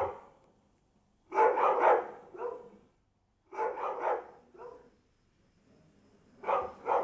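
A dog barking in three short volleys of two or three barks each, a couple of seconds apart.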